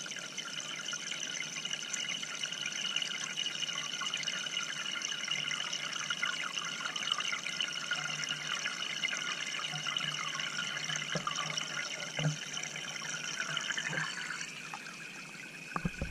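Steady rush and trickle of water jets from an aquarium filter's spray bar falling into the tank, heard from underwater. A couple of soft knocks come about two-thirds of the way through.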